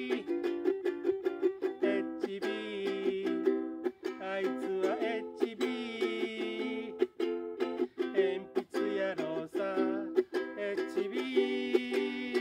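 Ukulele strummed in a steady rhythm through a song, with long wavering held sung notes over it at times.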